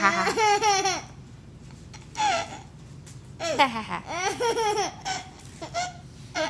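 Baby laughing in several high-pitched bursts with short pauses between them, the longest run about halfway through.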